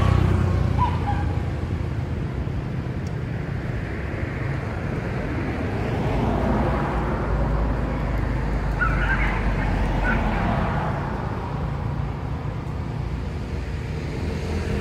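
Road traffic: a steady low rumble of vehicle engines running and passing, with a few short faint high chirps about nine seconds in.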